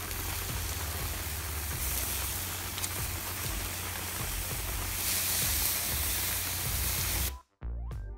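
Steak and boerewors sausage sizzling on a grill over campfire coals, a steady hiss with a low rumble beneath. It cuts off suddenly near the end, and music begins.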